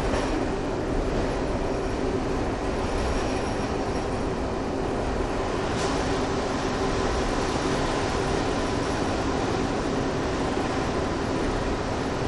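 NS DE-II diesel-electric two-car railcar 186 running, a steady humming and buzzing drone from its diesel power unit that holds even throughout.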